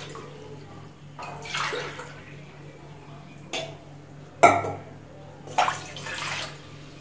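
Water poured from a cup into a stainless steel kadai, in two pours, with two sharp knocks between them, the second the loudest sound. A steady low hum runs underneath.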